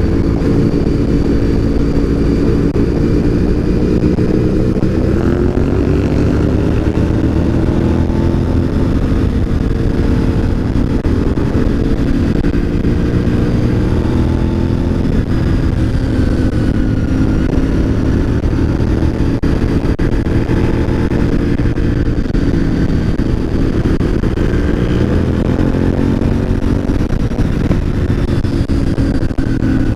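Honda RC51's 90-degree V-twin engine under way, heard from the rider's seat with wind rush on the microphone. Its pitch climbs about five seconds in, then dips and rises again near the end as the throttle is worked through the bends.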